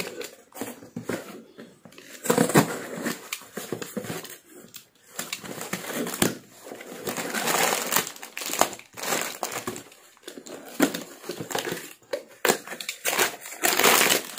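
A cardboard parcel being opened by hand, with irregular rustling and scraping of the flaps and packing. Near the end, a crinkly plastic snack packet is pulled out of the box.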